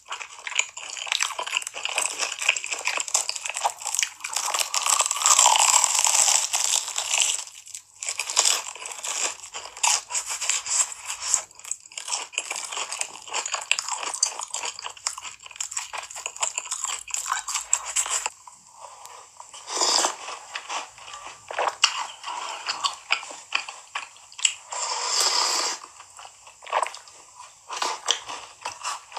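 Close-up eating sounds: crunchy biting and chewing, a dense run of crisp crackles that turns sparser, with separate louder bites, in the last third.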